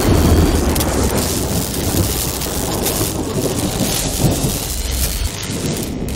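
Rain and thunder sound effect: a steady hiss of heavy rain over a deep thunder rumble, the rumble dying away about five seconds in.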